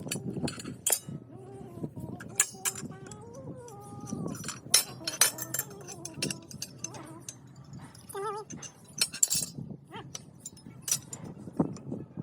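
Irregular metallic clinks and knocks of metal being handled, with faint voices in the background.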